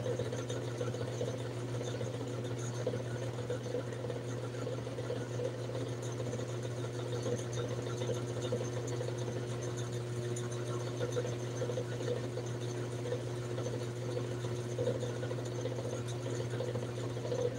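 A steady low hum of a small motor running, unchanging throughout.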